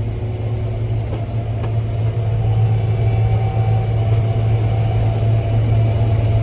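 Combine running steadily while harvesting corn: an even, low mechanical drone with a strong steady hum.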